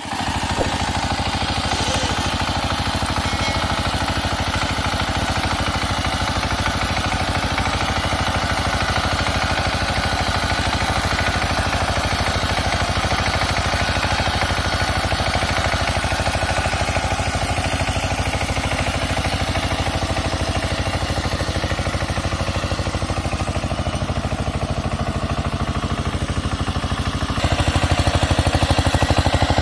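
Two-wheel power tiller's single-cylinder diesel engine running steadily under load as the tiller churns through a flooded rice paddy, getting louder about 27 seconds in.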